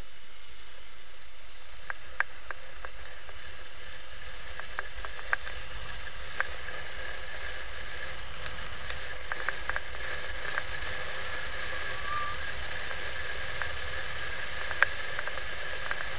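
Steady hiss of wind and road noise picked up by a camera mounted on a moving motorcycle, with a low rumble underneath and scattered small clicks and ticks.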